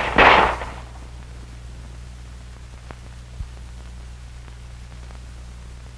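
A single pistol shot right at the start, dying away within about a second. It is followed by the steady low hum of an old film soundtrack.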